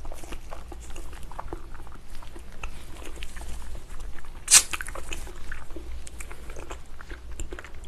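Close-miked eating of spicy braised ox foot: wet chewing, lip smacks and sucking on soft, gelatinous meat and skin off the bone, with one loud suck about four and a half seconds in.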